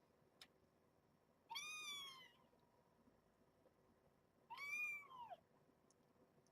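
A cat meowing twice, two short separate meows about three seconds apart, the second rising and then falling in pitch.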